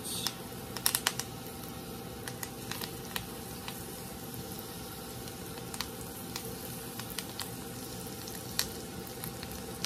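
Hot brown butter with thyme sizzling in a stainless skillet as halved king trumpet mushrooms are laid in, with scattered pops and a few sharp clicks about a second in.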